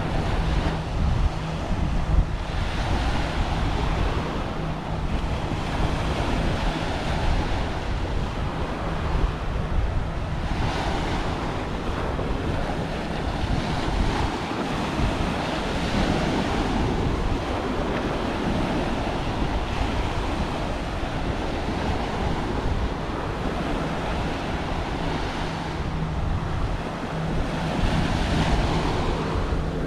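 Small ocean waves breaking and washing up a sandy beach, the surf swelling and easing every few seconds. Wind buffets the microphone with a low rumble throughout.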